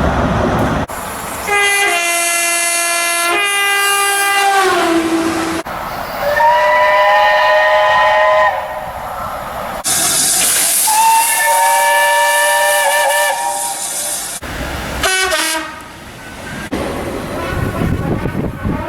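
Train horns sounding in a string of separate blasts, each several notes at once. Most are held for about two seconds; one slides down in pitch at its end, another wavers near its end, and a short blast comes near the end. Hiss and running-train noise fill the gaps between them.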